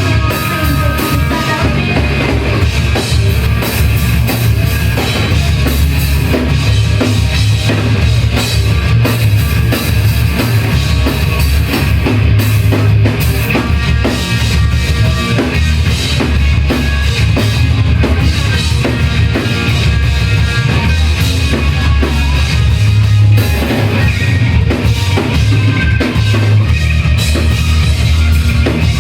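Live rock band playing loudly, with the drum kit to the fore: a steady beat of bass drum and snare under the band.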